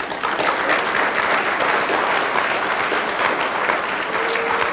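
Audience applause, many hands clapping, breaking out suddenly in response to a speaker's punchline.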